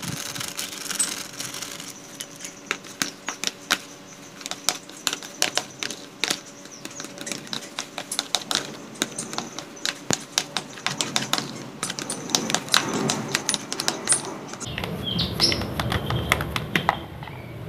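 Plastic rice paddle scraping and clicking against a plastic bowl in quick, irregular taps as crumbly steamed carp bait is stirred and kneaded with a hardener worked in. About three-quarters of the way in a low rumble starts, with a few short bird chirps.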